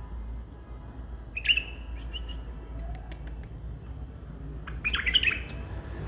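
White-eared bulbul calling in two short phrases of quick chirping notes, one about a second and a half in and one near the end, over a low steady background rumble.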